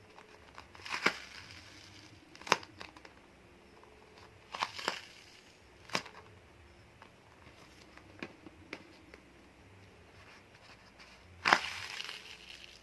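Homemade sponge squishy, coated in tissue and dried glue, being handled and squeezed: a handful of short crinkling, crushing crackles at irregular intervals, the loudest near the end.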